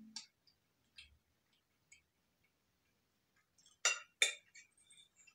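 Metal fork clinking against a ceramic dinner plate while picking up food: a few soft clicks, then two sharp clinks about half a second apart, about four seconds in.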